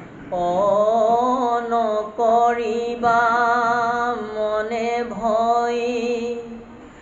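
A man singing a devotional Bhagavat verse (sloka) in long, drawn-out notes that waver and glide, with short breaks for breath, trailing off near the end.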